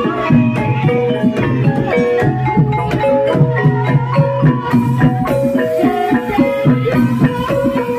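Gamelan music accompanying an ebeg dance: struck keyed percussion playing quick runs of short ringing notes over a steady pattern of hand-drum strokes.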